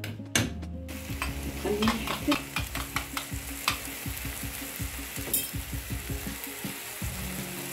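A filling of rice vermicelli, shrimp and minced meat sizzling in a frying pan while a metal spoon stirs it. The spoon clicks and scrapes against the pan, most often in the first few seconds; the sizzling goes on after the stirring thins out.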